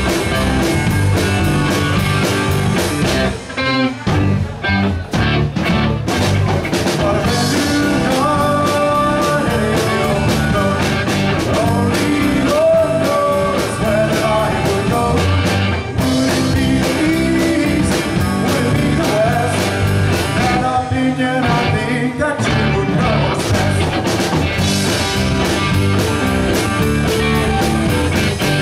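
Live rock band playing: two electric guitars, electric bass and drum kit, with a male lead vocalist singing over them.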